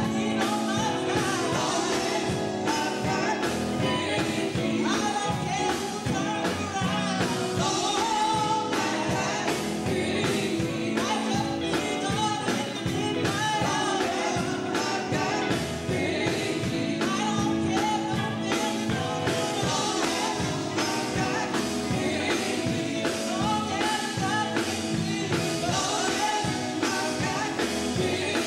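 Live gospel song: women's voices singing lead and backing parts, with a band of drum kit, electric guitar and bass guitar keeping a steady beat.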